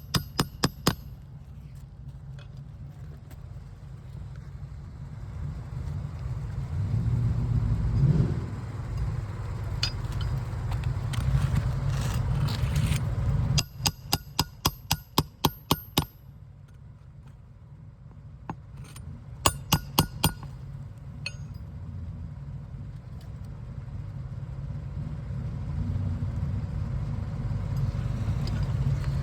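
A shingle hammer driving roofing nails into asphalt shingles in quick runs of strikes: a few at the start, about nine in rapid succession around the middle, and about five more a few seconds later. A steady low rumble lies underneath.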